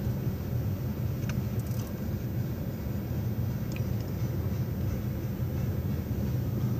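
Steady low rumble of a moving car, heard from inside the cabin: engine and road noise, with a few faint ticks.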